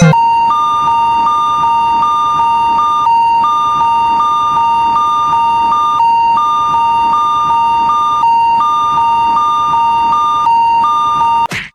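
Japanese railroad crossing warning alarm, the electronic "kan-kan" signal, sounding as a steady repeating two-tone ding that means a train is approaching. It is cut off near the end by a brief whooshing sweep.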